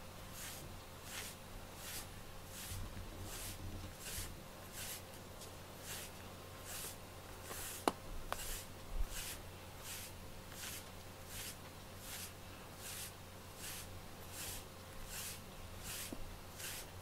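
A grooming brush swishing through a cat's fur in quick, even strokes, about three a second. Two faint clicks come about halfway through.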